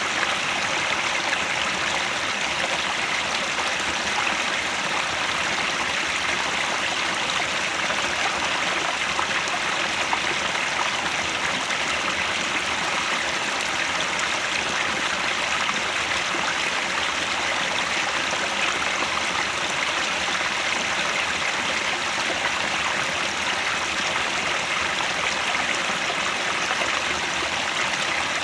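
Headwater stream flowing steadily, an even wash of running water with no breaks.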